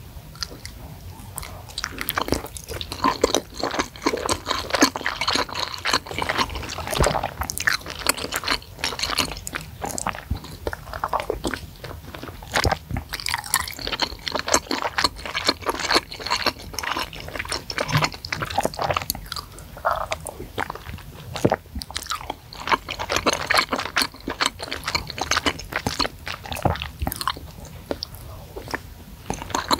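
Close-miked chewing of spicy Indonesian meatballs (bakso mercon) and noodles in sauce: a steady run of irregular wet mouth clicks and smacks.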